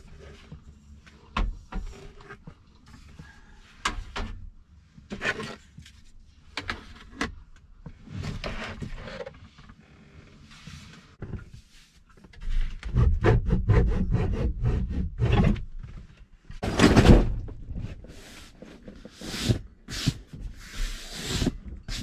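Handling noise of a wooden table and seat cushions being moved about in the cramped camper: a string of knocks, bumps and rubbing, busiest and loudest in the second half.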